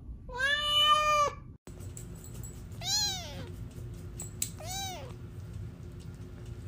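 A cat meows once in a long, loud call lasting about a second. Then, after a sudden break, a tiny kitten mews twice in short, high calls that rise and fall.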